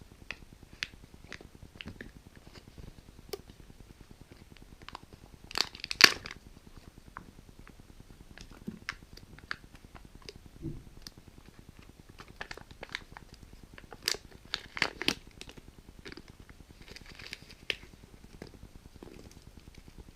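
Kinder Joy egg packaging being handled and torn open: scattered crinkles, tearing and small plastic clicks, with a louder crinkling burst about six seconds in and another cluster about fourteen to fifteen seconds in.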